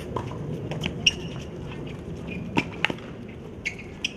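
Tennis rally on a hard court: sharp pops of the ball struck by racquets and bouncing, about five in a few seconds, over a steady background noise.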